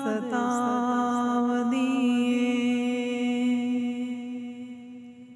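A voice singing a Punjabi naat, holding one long steady note on the word 'yaad' that fades away near the end.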